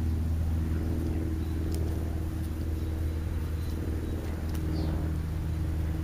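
A steady low mechanical hum from a running motor, constant in pitch. A few faint, short high bird calls come through over it.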